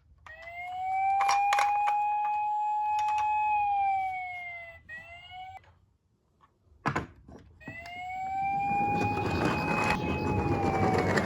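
A toy police car's electronic siren wailing: a slow rise, a long held note and a fall, cut off about five seconds in. After a pause and a click it starts again, with knocks and a rushing rattle under the second wail.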